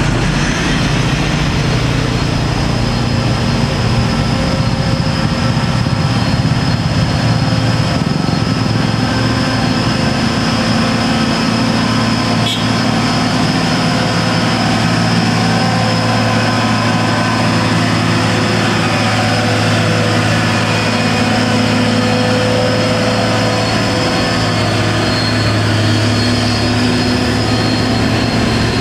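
Heavy diesel truck engine pulling under load at steady revs as the truck climbs a steep grade slowly; the engine note grows stronger about a third of the way in.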